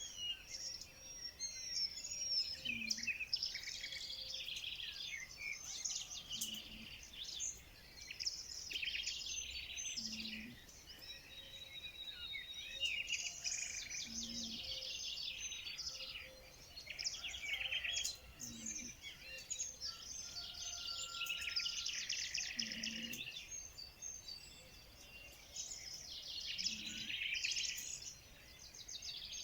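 A chorus of small songbirds singing, with dense overlapping chirps and trills. Under them a short low note repeats about every four seconds.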